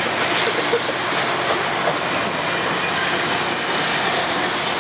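Amtrak stainless-steel passenger cars passing close at speed: a steady rush of wheels on rail and air noise, with no let-up.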